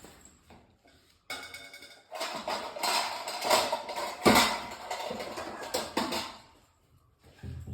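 Kitchen utensils and dishes clattering and scraping as a bowl and a spoon are handled at the pan, with one sharp knock about four seconds in.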